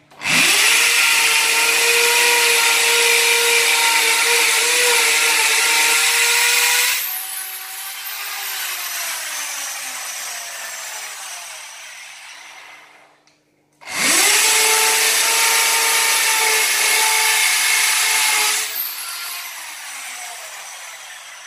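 Corded electric drill boring holes into a wall for wall plugs, in two runs of about seven and five seconds. Each time the motor spins up and runs at full speed while drilling, then winds down with a falling whine after the trigger is let go.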